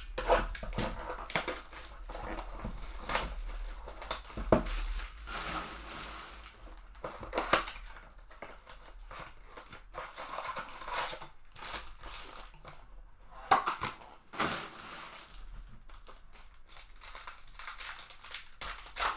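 Crinkling, tearing and rustling of plastic and foil wrapping as a trading-card blaster box and its packs are torn open and handled. The crackles come irregularly, with a few sharper loud cracks.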